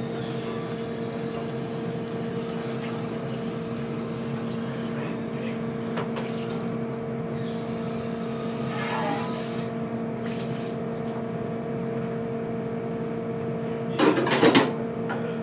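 Steady machine hum of kitchen equipment, holding a few fixed low tones over a constant rushing noise, with a short clatter about a second before the end.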